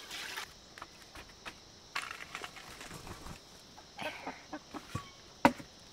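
A short splash of water poured into a steel pot, then scattered knocks and clatter with one sharp click near the end, over a steady high insect hum.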